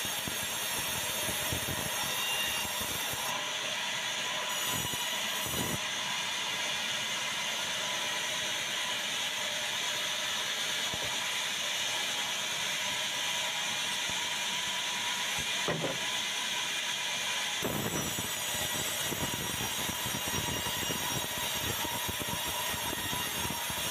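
Sawmill band saw ripping a white meranti log lengthwise as the carriage feeds it through the blade: a steady, even cutting noise, with a few short knocks.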